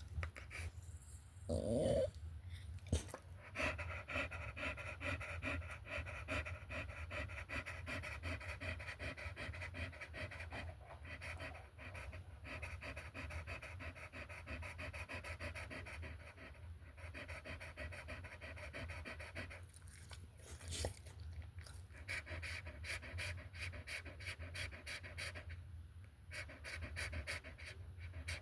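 Dog panting rapidly and steadily, with a short whine about two seconds in.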